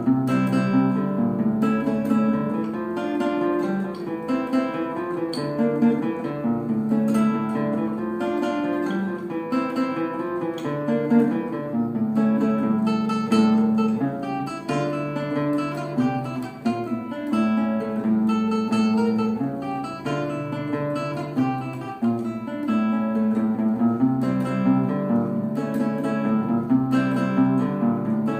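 Acoustic guitar playing a bulerías, a flamenco form: plucked melodic runs over a steady low bass, broken by strummed chords.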